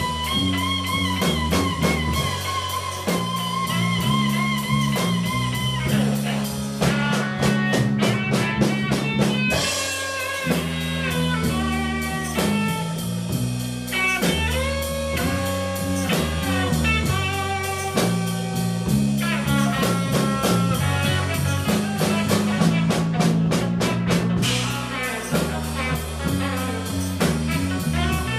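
Blues band playing a slow blues instrumental section: electric guitar lead over bass and drums. The guitar holds wavering, bent notes for the first few seconds, then plays quick runs of notes.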